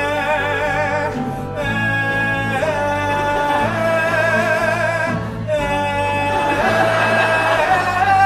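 Music from the stage musical: voices holding long sung notes with vibrato over instrumental backing, the pitch moving every second or two and the sound growing fuller near the end.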